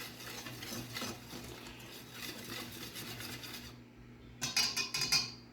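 A whisk stirring a dry flour mixture in a bowl, with a steady scratchy scraping, then a few louder clicks and scrapes against the bowl near the end.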